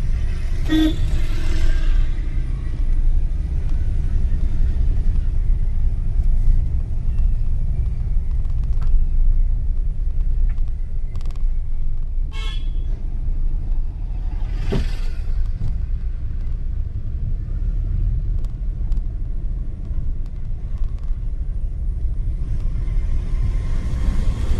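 Steady low rumble of a moving road vehicle, with other vehicles whooshing past about a second in, about two-thirds of the way through and near the end, and a short horn toot about halfway through.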